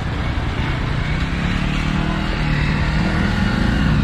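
Small motor vehicle engines running close by: a motor tricycle's engine, with a motorcycle approaching whose engine note rises and grows louder through the second half.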